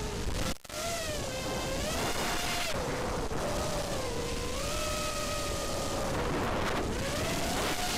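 Racing quadcopter's brushless motors and propellers whining, the pitch rising and falling as the throttle changes, over a rush of wind and prop wash. The level dips briefly about half a second in.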